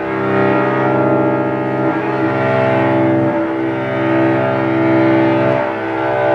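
Solo cello, bowed in long held low notes that change pitch about four times, each note lasting a second or two.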